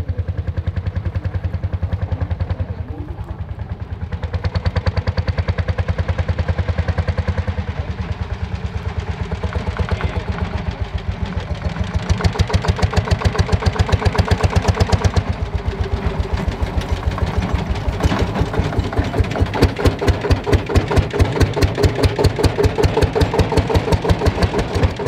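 Lanz Bulldog tractor's single-cylinder two-stroke hot-bulb engine running with a steady, even beat as the tractor drives across a field, getting louder about halfway through as it comes close and passes.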